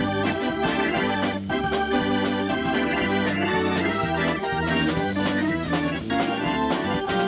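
Background music led by an organ over a steady drum beat.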